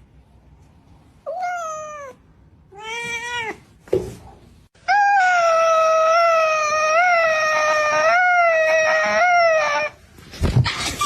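A cat meowing: two short meows falling in pitch, then one long drawn-out meow of about five seconds that wavers up and down. There is a brief click in between, and a short burst of noise near the end.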